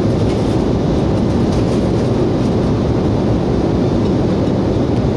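Steady cabin noise of a jet airliner in flight: an even, deep rush of engine and airflow noise with no change.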